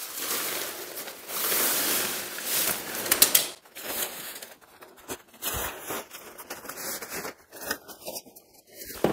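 Nylon tent fabric rustling and crinkling as a pop-up tent's folded legs are pulled out and unfolded, with a few sharp clicks from the frame.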